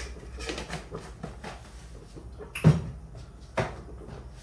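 Kitchen utensils clicking and scraping while spice powders are spooned into the gravy, with two sharper knocks a little past halfway and about a second later.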